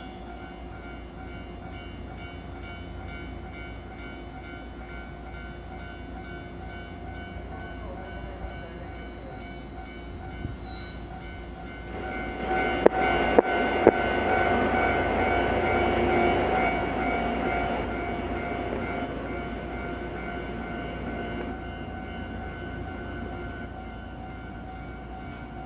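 Electric trains standing at a station platform: a steady hum with several held tones. About halfway through, a louder rumble swells for several seconds, with three sharp clicks, as a Shinano Railway 115 series electric multiple unit pulls out, then eases off.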